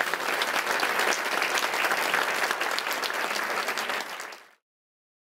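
Audience applauding, a dense steady patter of many hands clapping at the close of a talk, which cuts off suddenly about four and a half seconds in.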